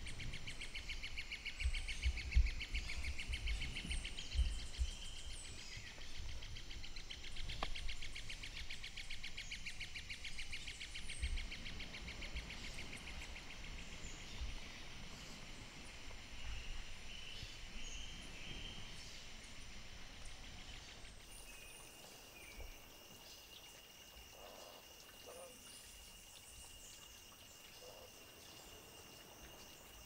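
Rainforest ambience: a fast-pulsing high insect buzz with scattered short bird chirps and low rumbling during the first two-thirds. From about 21 s it turns quieter, with one steady high insect drone.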